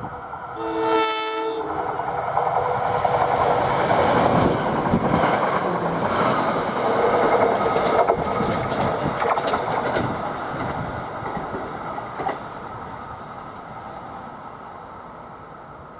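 Electric passenger train giving one short horn blast, then passing: a rush of wheels on rail that builds to a peak, with a cluster of sharp clicks midway, and fades away.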